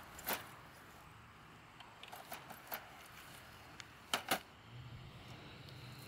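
Sharp clicks and rattles of a locking IEC C13 power cord plug and the metal server chassis being handled on the ground, with a loud double click about four seconds in.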